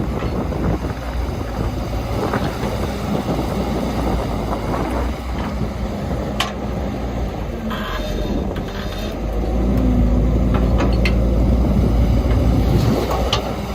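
Heavy diesel construction machinery running steadily, with a low engine hum that grows louder about ten seconds in, as if under load. A few sharp knocks sound over it, the clearest about six and a half seconds in.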